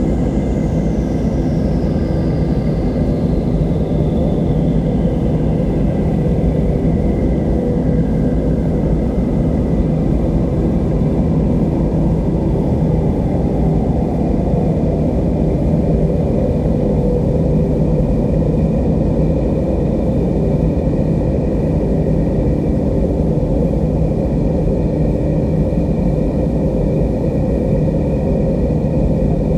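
Steady roar of rushing river water. Faint held tones sit above it, and a thin whistle-like tone slides slowly downward over the first dozen seconds.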